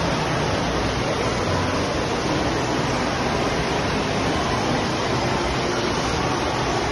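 Steady rushing noise of an indoor waterpark: water running through the slides and pool features.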